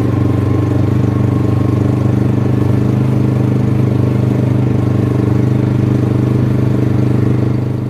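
Small boat's engine running steadily at speed, one even droning pitch, dying away near the end.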